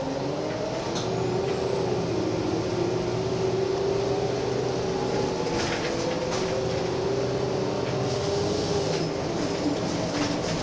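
Gillig Phantom transit bus's diesel engine and drivetrain running while the bus is driven, heard from the driver's seat: a whine that rises in pitch through the first second, then holds fairly steady, wavering slightly, with a few short rattles from the cabin.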